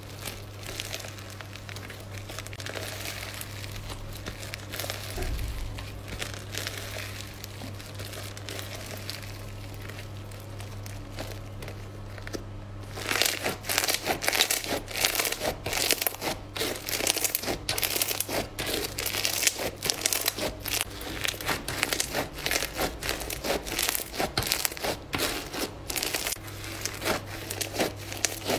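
Foam-bead slime squeezed and kneaded by hand, crackling and popping. About halfway in it jumps to louder, denser crackling.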